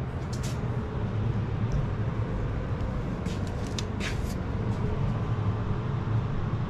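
Newly installed Carrier gas furnace running with a steady low hum and rumble, with a few faint clicks over it.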